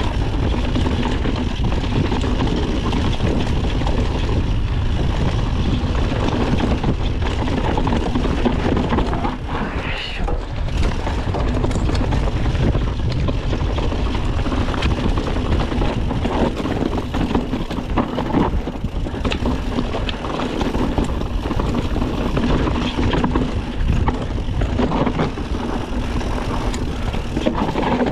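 Mountain bike riding down rough dirt singletrack: tyres rolling and crunching over the trail, with frequent knocks and rattles from the bike over bumps and a heavy low rumble. A brief rising squeal about ten seconds in.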